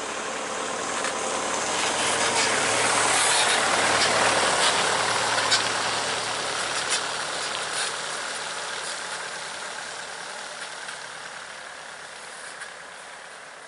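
A passing vehicle: steady engine and road noise that swells over the first few seconds, then slowly fades away.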